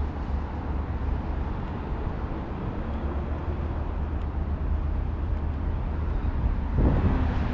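City street ambience: a steady low rumble of traffic, with something louder passing near the end.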